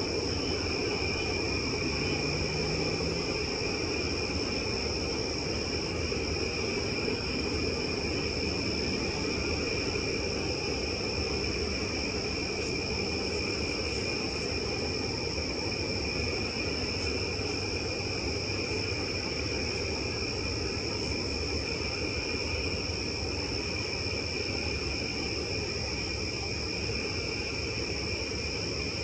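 A steady chorus of night insects gives a continuous high, even drone with no breaks, over a low steady background hum.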